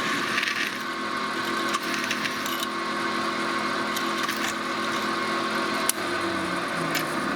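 Drill press running with a 5/16-inch drill bit drilling metal: a steady hum of several tones with a few sharp clicks. About six seconds in there is a click and the lower tones shift in pitch.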